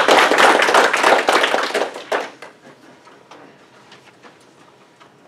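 Small audience applauding, the clapping dense at first and dying away about two seconds in, with a few scattered claps after.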